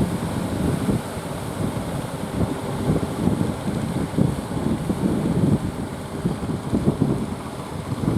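Strong wind buffeting the microphone in uneven gusts, over the rush of sea surf.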